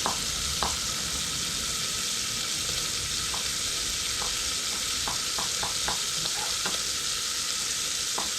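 Fat sizzling steadily in a pot, with scattered small pops. This is typical of salt pork rendering.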